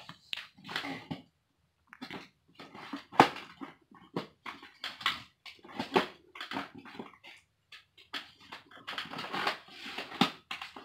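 Cardboard box and plastic packaging handled as a Nerf Magstrike blaster is worked free of its box insert: irregular scrapes, rustles and clicks in quick succession.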